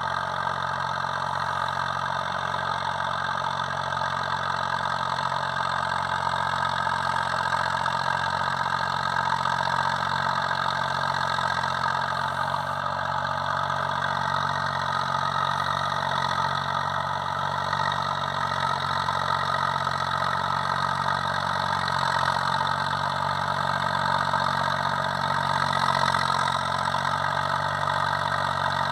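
Zetor 5011 tractor's three-cylinder diesel engine running steadily.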